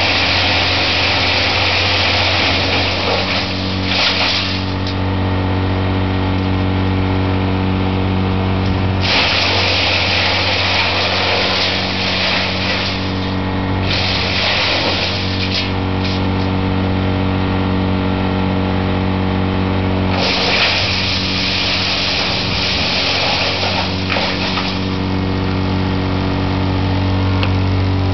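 Engine-driven wood chipper (Chipper CH260) running at a steady speed, with four spells of loud grinding noise a few seconds long each as material is fed through it: near the start, at about 9 s, briefly at about 14 s, and at about 20 s.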